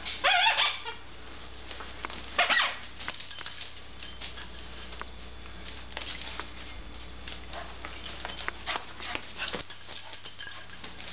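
Dog at play: two short high-pitched squeals, one at the start and one about two and a half seconds in, then light scattered clicks and scuffling.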